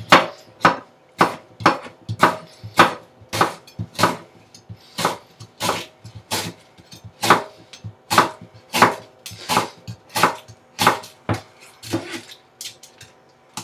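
Chef's knife slicing down through an onion half and tapping the cutting board, a steady rhythm of about two cuts a second.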